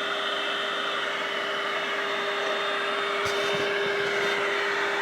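Hoover vacuum cleaner running steadily, its motor giving a constant whine over the airflow noise, with a couple of faint ticks midway.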